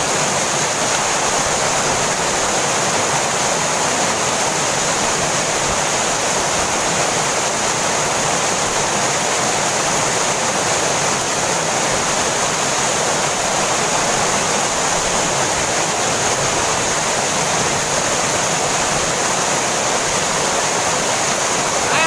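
Waterfall crashing into its plunge pool close by: a loud, steady rush of falling water that does not change.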